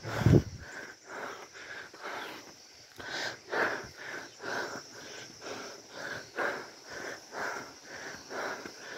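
Hard, rhythmic breathing of a man running uphill, about two breaths a second, mixed with his steps on a dirt track; he is out of breath. A loud low thump comes right at the start.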